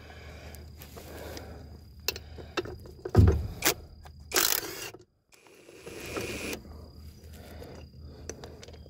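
Cordless drill-driver working on fasteners at a transmission's tailshaft housing, giving a low mechanical rattle with rapid clicking and sharp metal clicks. A loud knock comes about three seconds in.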